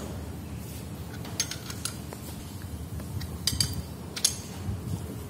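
Ring spanner clinking against a bolt as it is tightened on a Kamco power tiller clutch unit: a handful of sharp metallic clicks at uneven intervals.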